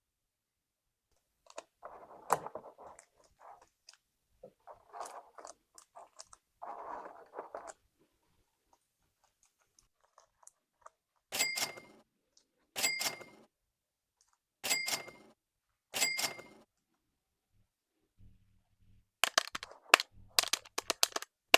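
Crinkling and crackling of plastic packaging in short bursts. Four identical sharp hits then follow, each with a ringing tone, and a quick run of clicks near the end.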